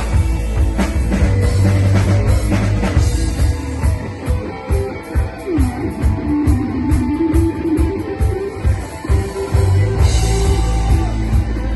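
Rock band playing an instrumental passage: a lead guitar line with bent, gliding notes over bass and a drum kit, with no singing.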